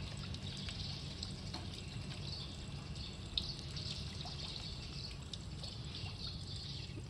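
Water trickling and flowing steadily in a narrow irrigation canal, with a single brief tap near the middle.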